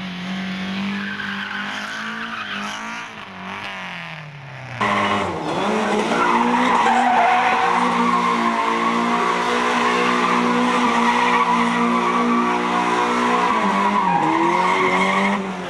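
Rally car engine running hard, its revs rising and falling, then after a sudden change about five seconds in a louder, steadier engine note with tyres squealing as the car slides.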